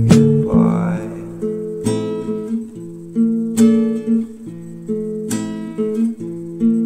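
Background music: acoustic guitar strumming chords, each strum ringing on.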